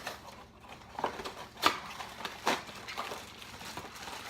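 Cardboard blind-box packaging being handled and torn open: scattered crinkles and sharp clicks, the loudest about one and a half seconds in.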